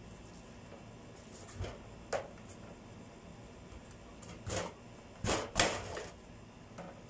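Kitchen knife cutting through a head of cabbage on a cutting board: a few short crunches and knocks, the loudest a cluster about five seconds in.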